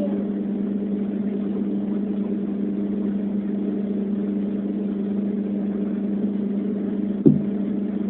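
Steady low motor hum, like an engine running, with a brief louder sound about seven seconds in that falls in pitch.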